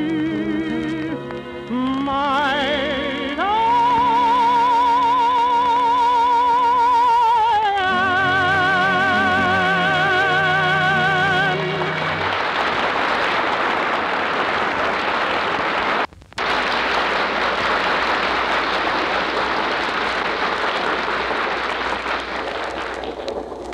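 A singer with orchestra holds the closing notes of a ballad, with wide vibrato, until about twelve seconds in. A loud steady rushing noise follows, broken by a brief drop about sixteen seconds in.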